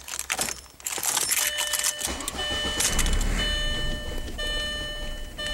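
1999 VW Passat 1.8L turbo four-cylinder engine being started with a jingle of keys, then running rough. A repeating electronic beep sounds over it. The rough running and stalling were later traced to a failing mass air flow sensor.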